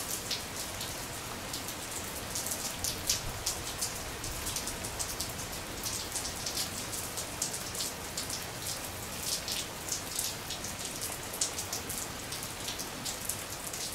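Steady rain falling on a surface: an even hiss with many small, irregular drop ticks.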